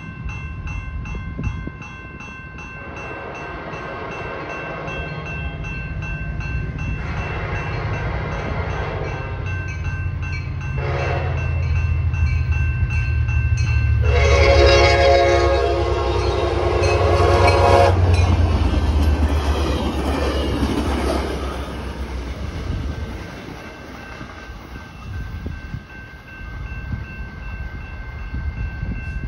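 Trinity Railway Express locomotive 120 sounding its horn for a grade crossing in the standard pattern of long, long, short, long. The last blast is the longest and loudest, and the horn echoes. The locomotive's diesel rumble builds as it nears and passes, then fades, while the crossing's warning bell rings steadily throughout.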